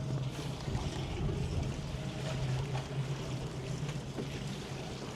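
Small fishing boat's engine idling with a steady low hum, under wind and water noise.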